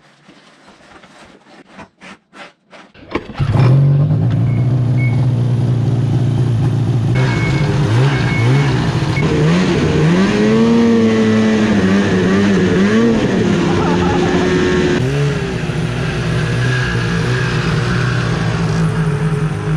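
Freshly rebuilt Ski-Doo Summit 800 two-stroke engine running while the snowmobile is ridden, its pitch rising and falling as the throttle is worked. The first three seconds hold only a few faint clicks before the loud engine comes in.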